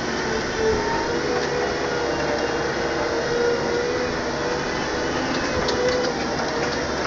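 Tractor engine running steadily as it drives along, with a whine that wavers slightly in pitch.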